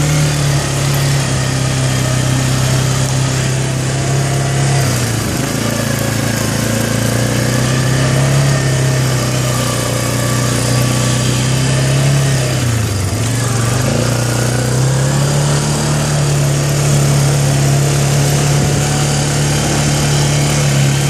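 Arctic Cat 400 4x4 ATV's single-cylinder four-stroke engine running steadily under load in low range. Its speed eases off about five seconds in, dips sharply around thirteen seconds, then picks back up and holds.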